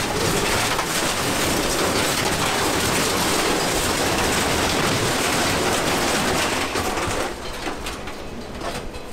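Mixed scrap metal clattering and crashing in a dense, continuous racket as a scrap-yard grapple excavator grabs and lifts a pile of it. The clatter drops off sharply about seven seconds in.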